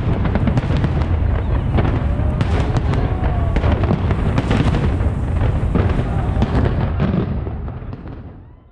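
Fireworks display going off: a dense run of cracks, pops and booms. It fades out over the last second or two.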